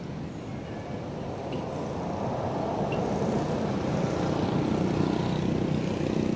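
A motor vehicle's engine running, growing steadily louder over several seconds.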